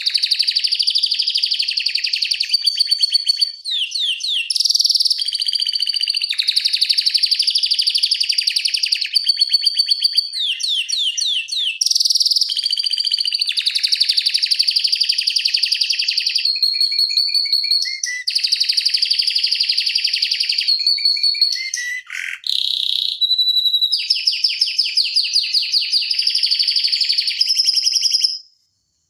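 Domestic canary singing a long, almost unbroken song of fast rolling trills, moving from one trill type to the next every second or two. The song stops abruptly shortly before the end.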